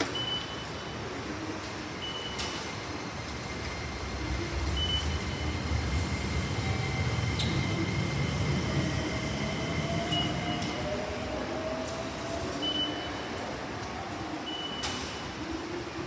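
A Keikyu electric commuter train runs through the station. Its low rumble swells in the middle and eases off toward the end, with a motor whine rising in pitch. Short high electronic beeps sound every few seconds.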